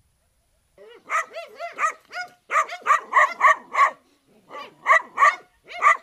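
A dog barking rapidly in three quick runs of barks, starting about a second in.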